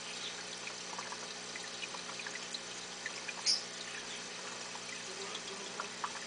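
Water trickling steadily in a fish tank, with scattered small ticks and pops over a faint low hum; one brighter pop about three and a half seconds in.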